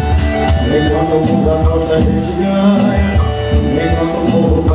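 Live forró band playing an instrumental passage between sung lines: accordion, bass guitar and drums over a steady kick-drum beat.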